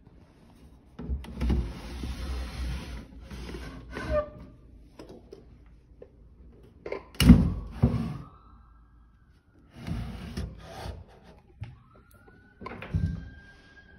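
Wood rubbing and scraping in short bursts, with a sharp knock about seven seconds in, as wooden fittings are handled and feet move on a hardwood floor. Near the end a faint siren rises and falls.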